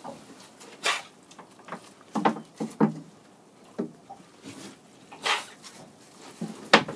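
Fishing net being hauled by hand over a boat's gunwale: irregular swishes, rustles and knocks as the wet mesh and its lines drag over the side.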